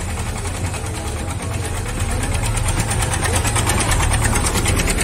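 Swaraj 722 Super tractor's diesel engine running with a fast, even knock, growing steadily louder as the tractor approaches.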